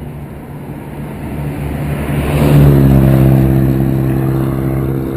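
A motor vehicle passes close by: its engine note grows louder, peaks about halfway through and fades away, dropping slightly in pitch as it goes past.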